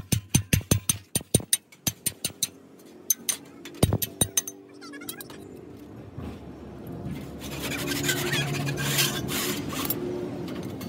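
Sheet iron being struck with a small hammer on a steel anvil block: quick metallic taps about four a second, then a few scattered strikes. From about six seconds in, a rasping scrape of a file drawn along the metal sheet.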